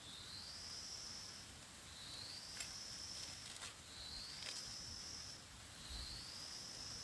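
A high, buzzing insect call repeating about every two seconds, each call rising in pitch and then holding steady for about a second and a half. A few short clicks fall around the middle.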